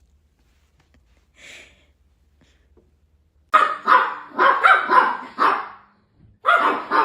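A dog barking: a quick run of about five loud barks starting about halfway through, after a quiet start.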